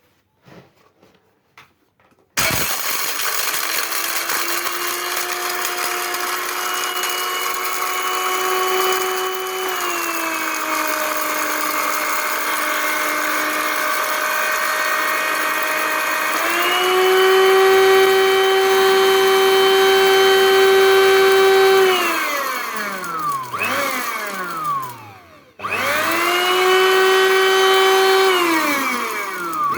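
Electric grinder motor grinding long pepper and white pepper to powder. It starts about two seconds in with a steady whine, which sinks in pitch about ten seconds in. The whine rises and gets louder around sixteen seconds, winds down and stops near twenty-five seconds, and the grinder is switched on again straight away.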